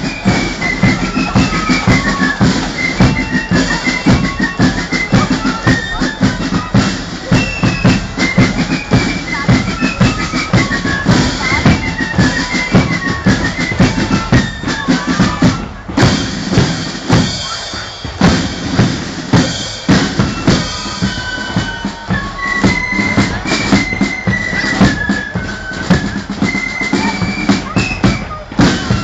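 Marching band playing: a high stepping melody over a steady beat of snare and bass drums.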